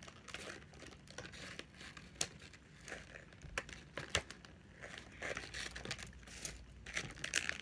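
Plastic toy packaging being unwrapped by hand: crinkling and tearing with scattered small clicks, getting busier near the end.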